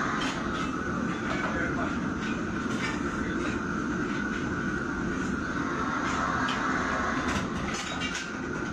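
Steady roar of commercial kitchen wok burners and extraction hood, with frequent short metal clanks of ladles against woks.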